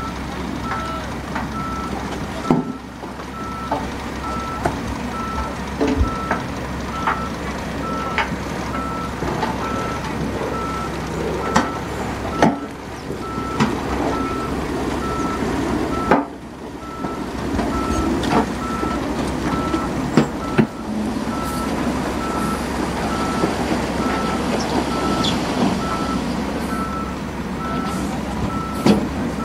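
Heavy diesel engines of a dump truck and wheel loader running, with scattered knocks and clatters of rock sliding off the tipped dump bed. A reversing alarm beeps steadily at one pitch over it.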